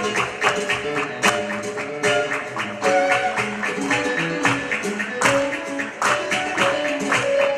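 Flamenco music: guitar notes over frequent sharp percussive clicks, several a second.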